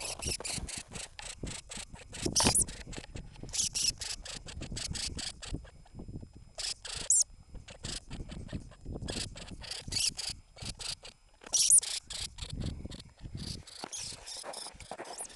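Norwegian lemming giving rapid runs of short, sharp, high-pitched squeaks, about five a second, in bursts with a few louder squeaks among them. It is the species' defensive threat call toward an intruder.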